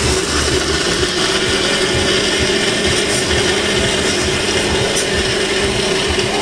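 Countertop blender switching on and running steadily at high speed, blending a coconut smoothie.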